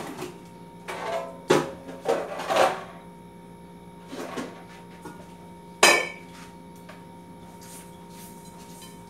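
Dishes and utensils clattering at a kitchen counter as they are handled: a few short knocks and clinks, then one sharp, loud clank about six seconds in, over a steady low hum.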